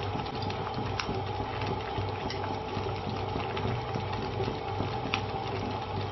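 Congee simmering in a clay pot over a gas burner: a steady bubbling hiss over a low steady hum. Chopsticks stirring the pot give a few light clicks, about one, two and five seconds in.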